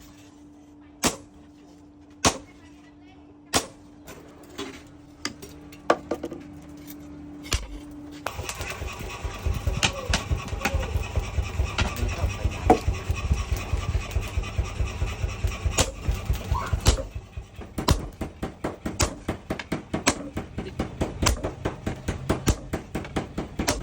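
Hammer blows on metal during forging: single strikes about once a second over a faint steady hum, then from about a third of the way in a fast, dense run of blows, several a second, slowing to steadier repeated strikes near the end.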